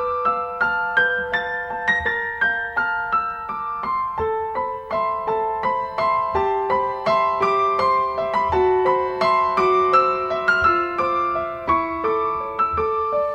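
Background piano music: a gentle melody of single struck notes over held chords, a few notes a second.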